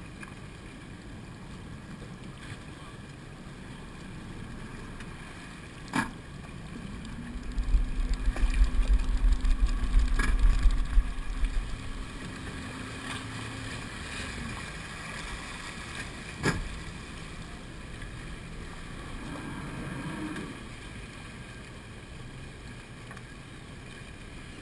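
Wind and water noise on an open fishing boat. A loud low rumble of wind on the microphone runs for several seconds in the first half, with a steady low hum under it. There are two sharp knocks, one before the rumble and one after it.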